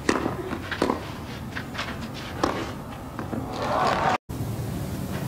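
Tennis ball knocks: a few sharp single strokes about a second apart, then a short rise of crowd noise that cuts off abruptly about four seconds in.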